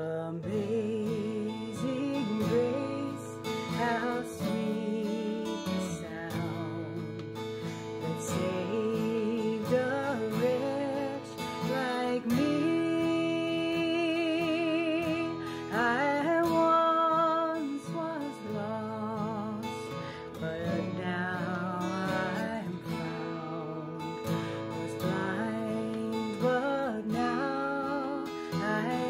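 Acoustic guitar strummed under a woman singing a worship song, her long held notes wavering with vibrato.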